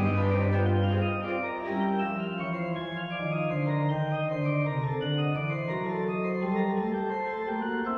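Henk Klop chest organ playing Baroque music: several voices of steady pipe tones moving from note to note. A deep held note drops out about a second in.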